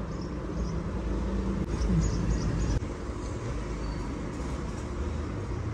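Steady low rumble of a running engine, with a faint hum.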